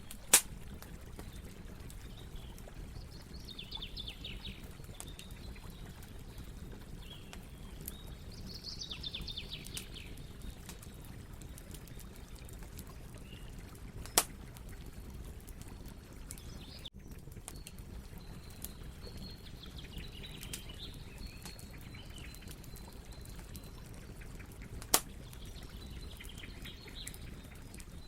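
Campfire burning with a steady low crackle of fine snaps and three loud sharp pops, about a second in, halfway through and near the end. Faint chirping in short trilled bursts sounds over it from time to time.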